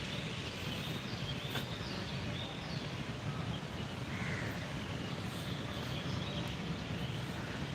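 Steady outdoor background noise with a few faint, short bird calls.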